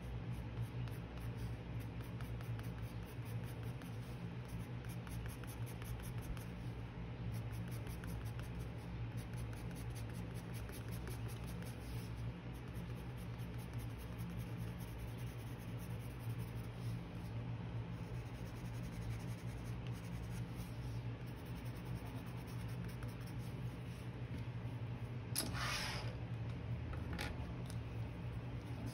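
Coloured pencil scratching on watercolour paper in many quick, repeated strokes, over a steady low hum. Near the end there is one louder brief scrape, then a second, shorter one.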